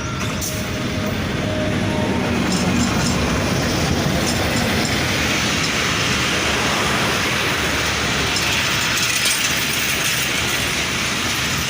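Passenger express train rolling in to stop at the station: a steady rumble and hiss of wheels on rails. It builds over the first couple of seconds and then holds.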